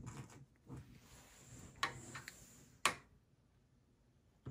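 Hands handling a desktop PC's motherboard and metal chassis: a few sharp clicks with faint rustling between them, the loudest click about three seconds in.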